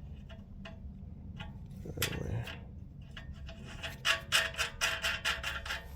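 A 17 mm steel nut being threaded by hand onto an exhaust flange stud: light metal clicks and scraping, turning into a quick run of clicks about four seconds in.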